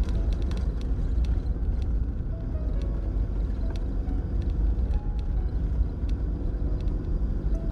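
Vehicle driving slowly on a snow-covered road, heard from inside the cabin as a steady low rumble of engine and tyres. A few soft, sparse notes of background music sound over it.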